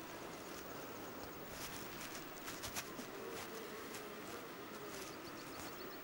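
Quiet outdoor ambience: a few soft rustles and clicks in the first half, then a faint thin insect buzz for about two seconds in the middle.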